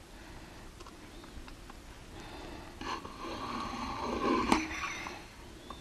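Steel scriber of a dial height gauge being drawn across a stainless steel plate to scribe a bend line: a scratchy, squealing scrape of about two seconds starting about three seconds in, with a sharp click near its end. A few faint ticks of handling come before it.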